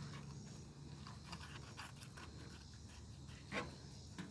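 Fillet knife slicing down a spotted bass: faint scattered scrapes and small clicks as the blade works along the bones, one sharper click about three and a half seconds in.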